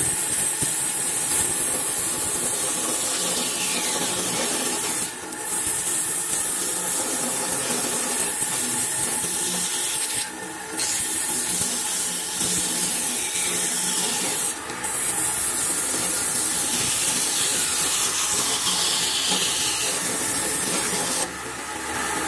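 Bandsaw running and cutting a curve through a thick block of hardwood: a steady, loud hissing saw noise with four brief dips in level.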